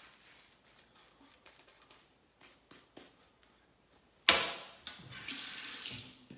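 Faint soft strokes of a shaving brush on the face, then just after four seconds a sudden splash as the tap comes on, and water runs from the faucet into the sink for about a second before stopping.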